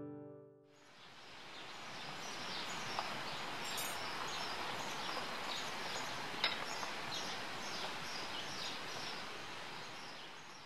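The last banjo note dies away, then outdoor ambience fades in: a steady hiss with a short high chirp repeating about twice a second, and a single sharp tick about six and a half seconds in.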